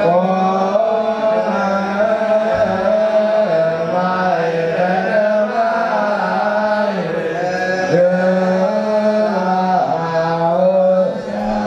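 Ethiopian Orthodox hymn chanting: a wavering, drawn-out sung melody over a steady low held tone.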